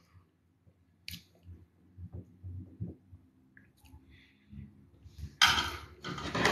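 Close chewing with soft clicks of a spoon on a plate, then a loud burst of noise about five seconds in.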